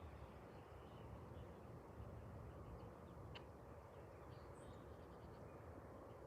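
Near silence: faint outdoor background hum with a few brief, faint bird chirps.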